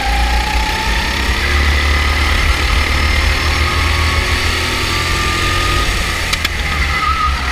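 Go-kart engine running while the kart drives the track, heard from onboard as a steady low rumble with a faint engine note that rises a little in the first couple of seconds.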